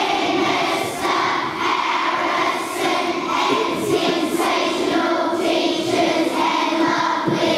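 A hall full of schoolchildren chanting a greeting back in unison, a drawn-out sing-song reply to the principal's "Good morning, everyone."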